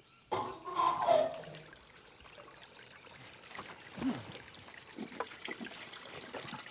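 Water trickling and splashing, with a louder burst of sound about half a second to a second and a half in.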